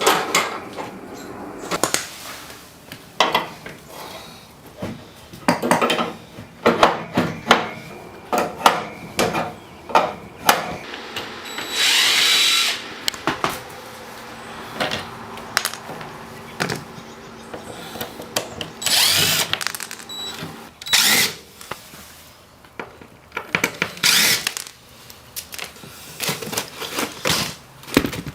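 Power drill running in short bursts, the longest about twelve seconds in, among many sharp knocks and clatters of kitchen cabinetry being pulled apart.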